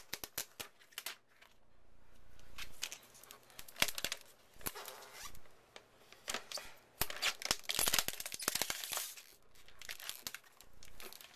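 Clear protective plastic film being peeled off a new aluminium laptop, crinkling and crackling in irregular bursts that are busiest in the second half.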